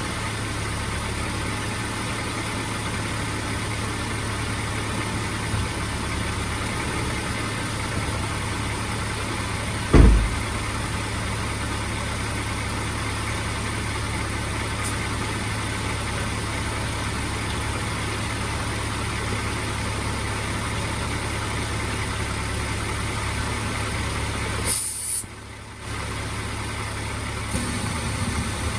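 Mazda MX-5 engine running steadily at idle with a gear engaged, turning the manual transmission over while it is flushed with cleaning agent. A single loud thump comes about ten seconds in, and near the end a brief hiss is followed by a sudden drop in sound for about a second.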